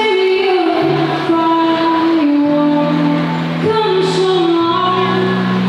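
A woman singing live with her own acoustic guitar accompaniment, amplified through a PA system, in long held notes.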